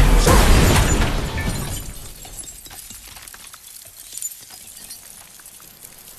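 Car crash with glass shattering, loud at first and fading over about two seconds, then scattered small tinkles and clicks of falling glass and debris.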